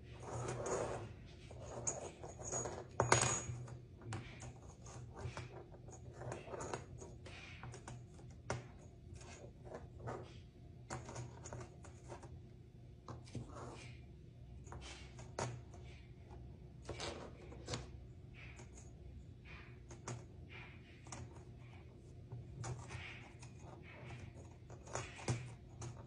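Metal nails clicking and clinking against one another and the tabletop as they are handled and arranged by hand: many quiet, irregular clicks.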